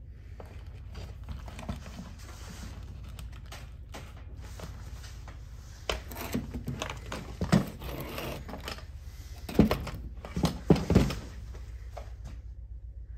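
Hard plastic ski boot shell handled on a wooden workbench: scattered knocks, clicks and rubbing, growing busier about halfway through, with a few louder thunks near the end, over a low steady hum.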